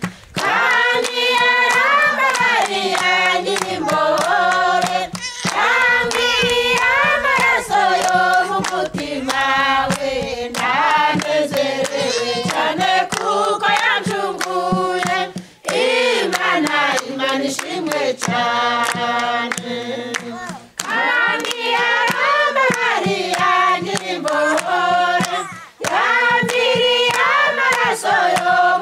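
A group of women singing a Kinyarwanda hymn together, unaccompanied, with steady hand-clapping. The singing comes in phrases with short breaks between them.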